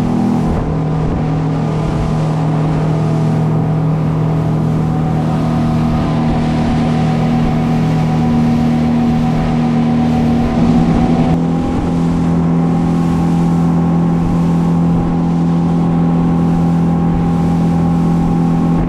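Suzuki 300 outboard motor running at cruising speed as the boat planes, a steady engine drone over the rush of wind and water spray. The engine note wavers and shifts slightly about eleven seconds in.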